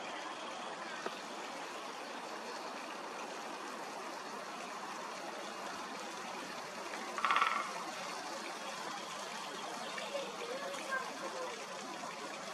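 A woodpecker drumming on a branch: one short, rapid drum roll a little past halfway, the loudest sound here, over a steady rushing background like trickling water. A few faint soft calls come near the end.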